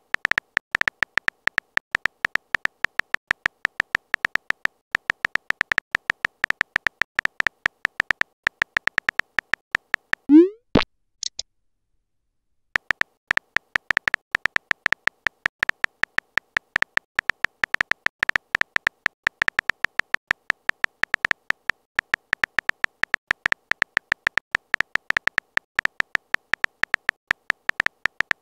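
Phone keyboard typing sound effect: a fast, dense stream of key clicks. About ten seconds in the clicking stops for a short rising 'bloop' of a message being sent, then the typing clicks start again about two seconds later.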